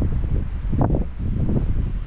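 Wind buffeting the microphone with a steady low rumble, swelling in a stronger gust about a second in.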